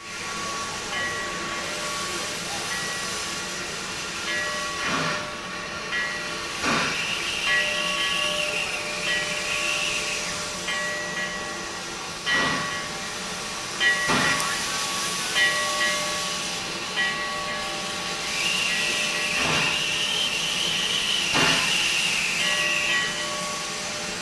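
Steam hissing steadily from the open cylinder cocks of the 1870s 2-6-0 wood-burning steam locomotive Glenbrook as it moves slowly, with a sharp chuff every few seconds.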